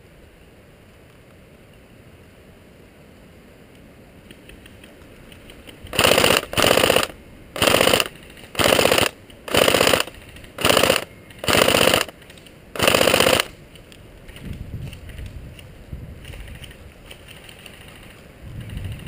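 Airsoft gun firing on full auto: eight short bursts of rapid shots in about seven seconds, starting about six seconds in.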